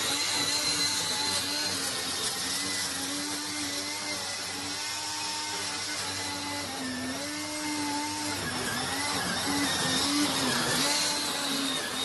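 Homemade remote-control weed trimmer on an RC truck chassis running, its electric motor whining steadily over a high hiss as the cutter spins. The pitch wavers and dips repeatedly, most of all in the last few seconds, as the trimmer works through grass.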